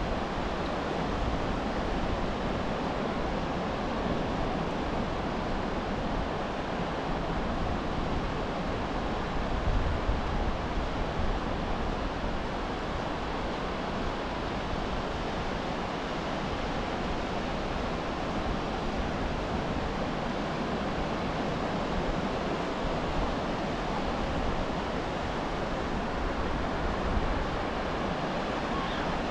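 Ocean surf breaking and washing up the beach: a steady rushing noise that swells briefly about ten seconds in.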